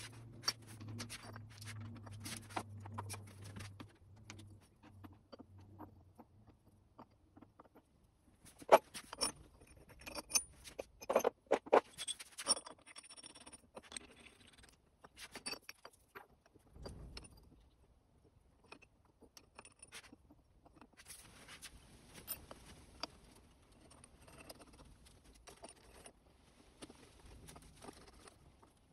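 Small metal parts and tools clinking, rattling and scraping as they are handled on a workbench, in irregular clusters of sharp clicks. A low hum runs under the first few seconds and stops about five seconds in.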